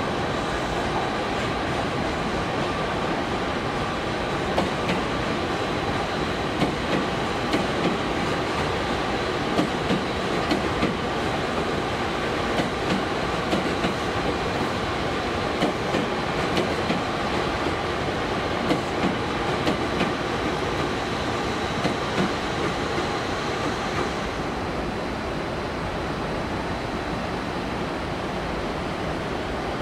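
JR West 227 series electric train pulling into the platform, its wheels clacking irregularly over rail joints and points as the cars pass, over steady running noise with a thin high tone. About three-quarters of the way in the sound drops to a softer, duller station ambience.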